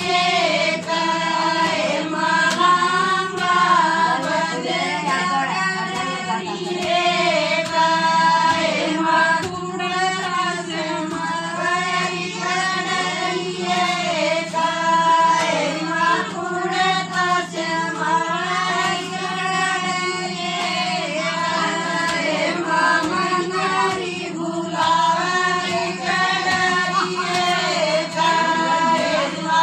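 A group of women singing a Haryanvi wedding folk song (khodiya) together, the melody running on without a break, over a steady low hum.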